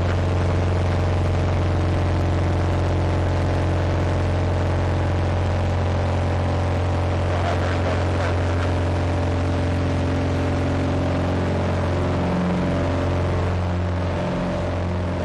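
Single-engine floatplane's piston engine and propeller droning steadily, heard from inside the cabin, easing slightly in level near the end.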